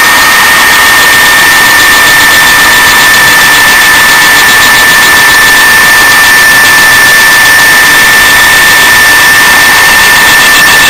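Dumore toolpost grinder running with a steady high whine over a hiss as its small wheel grinds the face of a Briggs & Stratton valve turning in the lathe chuck, fed in ever so slowly with light dry cuts.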